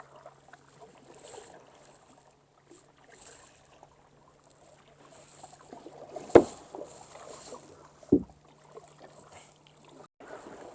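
Kayak paddle strokes dipping and swishing through the water, with two sharp knocks about six and eight seconds in.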